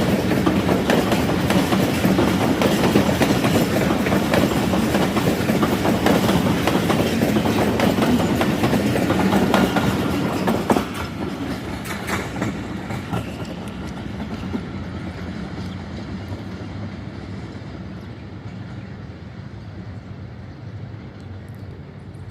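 Passenger train's coaches rolling past close by, the wheels clattering over the rail joints. About ten seconds in the last coach goes by, the sound drops suddenly and then fades as the train moves away.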